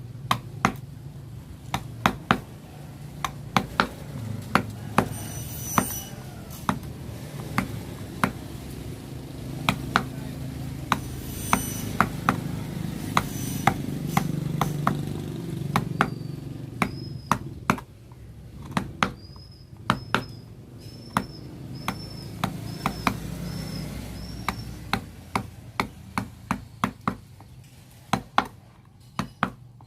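Mallet striking a wood-carving chisel, cutting out lettering in a wooden name board: sharp irregular taps, often in quick pairs or threes, over a low background hum.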